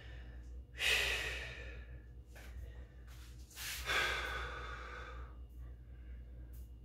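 A man breathing hard, winded after a set of shoulder exercises, with two long, loud exhales, about a second in and again about four seconds in.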